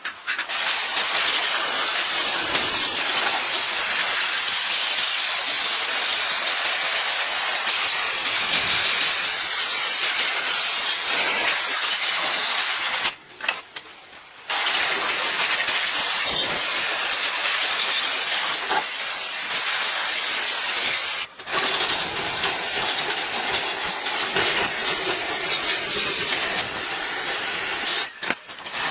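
A loud, steady hiss that stops for a moment about halfway through and twice more briefly later on.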